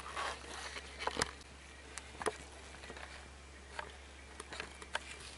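Scattered light knocks and clicks of someone moving about and handling a drain pan, the two clearest about a second and two seconds in.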